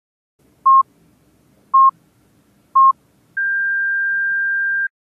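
Electronic beep sound effect: three short beeps about a second apart, then one longer, higher-pitched beep held for about a second and a half, in the pattern of a countdown start signal.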